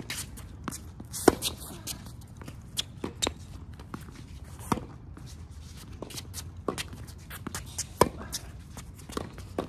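Tennis rally: rackets striking the ball, the loudest hits coming roughly every three seconds with quieter hits and bounces in between, over footsteps on the court.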